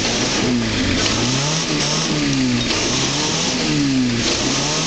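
A 4x4's engine revving up and dropping back several times, its pitch rising and falling about once a second.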